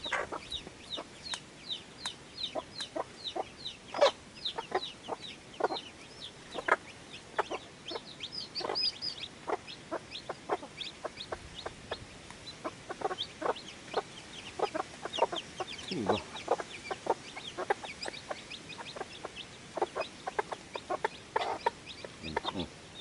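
Newly hatched chicks peeping constantly in short, high, falling notes, several a second, with short clucks from a mother hen among them.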